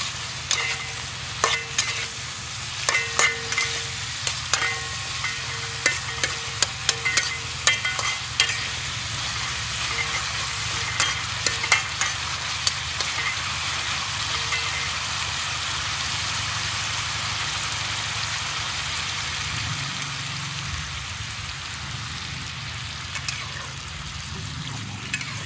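Pork pieces sizzling in a hot wok while a metal spatula stirs and scrapes them. For the first half there are frequent sharp clinks of metal against the wok, then a steadier sizzle with only a few clinks.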